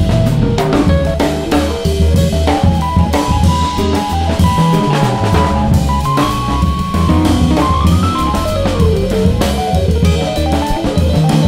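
Background music with a steady drum-kit beat, bass and a melodic guitar line.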